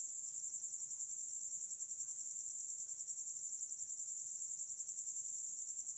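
Cricket chirping: a continuous, high-pitched pulsing trill that holds steady throughout.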